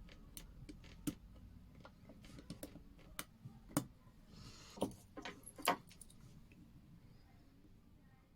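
Small, sharp, irregular metal clicks and taps of watchmaking tools and parts as a stem is fitted into a Pulsar quartz watch, with a brief soft rustle in the middle. The clicks die away after about six seconds.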